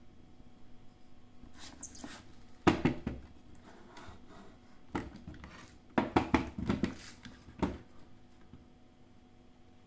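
Hard objects being handled and set down: a scatter of knocks and clicks, loudest about a third of the way in, with a quick run of them just past the middle.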